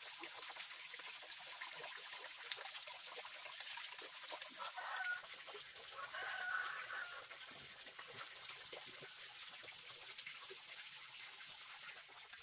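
Chickens clucking twice, about five and six and a half seconds in, over a steady hiss scattered with small crackles and taps.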